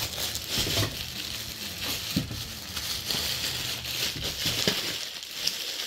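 Grey plastic mailing bag crinkling and rustling as hands handle it, with a few small clicks.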